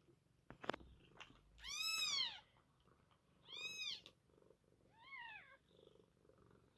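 Newborn Maine coon x sphynx kittens mewing: three short, high cries that each rise and fall in pitch, about two, three and a half and five seconds in, the first the loudest. A sharp click about half a second in.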